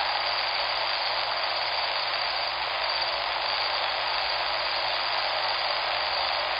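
River water rushing steadily: an even hiss of flowing water that neither rises nor falls.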